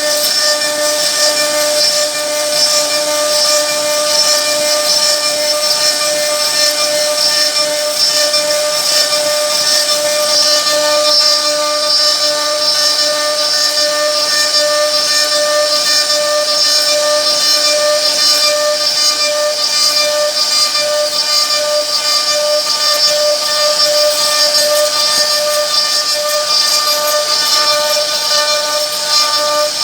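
CNC router spindle running at speed while its bit carves a wooden board: a steady, high-pitched whine over a constant hiss.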